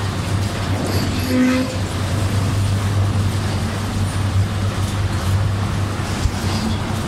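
Diesel engine of an Eicher 380 tractor running steadily at idle with a low, even hum. A short pitched tone sounds once about a second and a half in.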